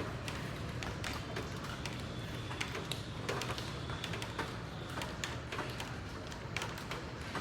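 Rain falling: a steady hiss with irregular sharp taps of drops striking a hard surface, a few a second.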